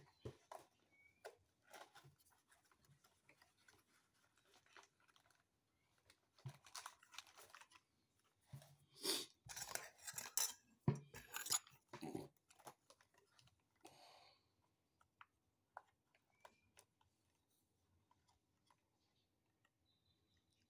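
Cardboard and plastic packaging crinkling and tearing as a box of corn starch and its inner bag are opened, in scattered rustles with a denser run of crackling around the middle.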